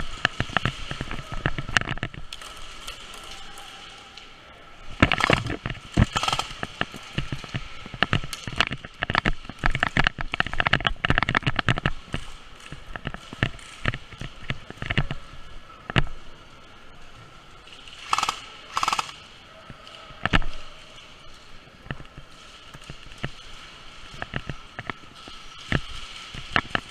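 Airsoft gunfire: scattered single shots and rapid bursts of electric airsoft guns popping. The firing is densest about five seconds in and again from about nine to twelve seconds in.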